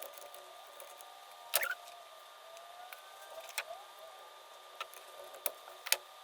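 Sporadic light clicks and taps of small carburetor parts and tools being handled during reassembly, one sharper click about a second and a half in and a few more near the end, over a faint steady hum.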